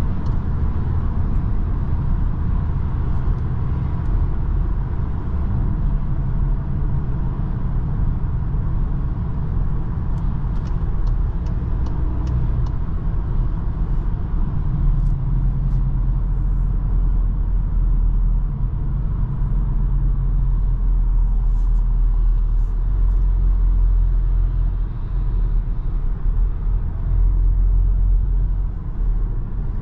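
Cabin sound of a Cupra Formentor VZ5 under way at cruising speed: a steady low rumble from its five-cylinder engine mixed with tyre and road noise.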